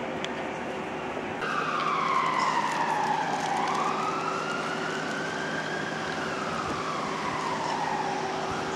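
Emergency vehicle siren wailing: it comes in suddenly about a second and a half in and slides slowly down, back up and down again in pitch.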